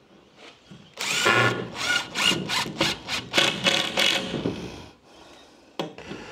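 Cordless drill driving a screw into a timber frame, the motor run in a quick series of short pulses for about four seconds, then one brief burst near the end.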